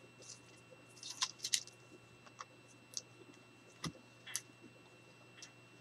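Scattered small crinkles and clicks of tape backing being peeled off the edges of an album spine and handled, busiest about a second in, with a soft knock just under four seconds in.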